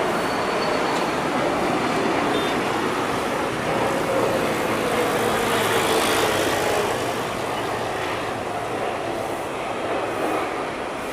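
Singapore Airlines Boeing 777-300ER landing, its GE90 jet engines passing with a steady roar and a whine that falls in pitch as it goes by. The sound is loudest about six seconds in, then eases off.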